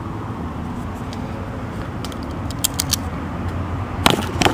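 Light metallic clicks of a gate lock's small parts being worked with a tool, a few faint ones midway and two sharper ones near the end, over a steady low outdoor rumble like distant traffic.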